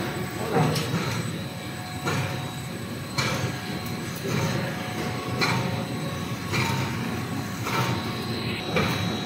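Twisted dog-chew production line machinery running: a steady low mechanical hum with a faint steady whine, and a short clatter about once a second.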